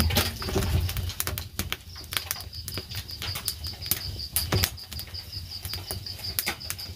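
Wood fire crackling with irregular sharp pops, over a steady pulsing insect chirp. A low rumble fades out in the first second.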